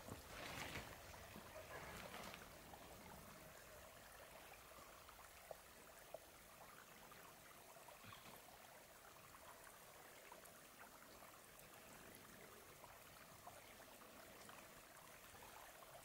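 Near silence: a faint steady outdoor hiss, with a few soft footsteps in the snow in the first two seconds and a couple of faint ticks a few seconds later.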